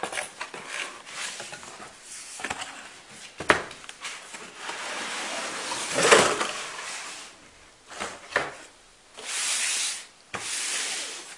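Cardboard graphics-card box being opened by hand: flaps and board rubbing and scraping, with light knocks and one louder scrape about six seconds in. Near the end come two longer, even sliding rubs of cardboard on cardboard.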